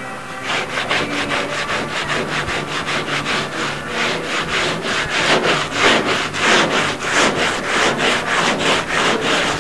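Hand saw cutting through a wooden board in quick, even strokes, about four a second, getting louder partway through.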